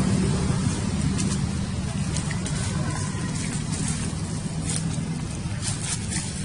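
A steady low mechanical hum, like a running motor, with a few faint light ticks over it in the second half.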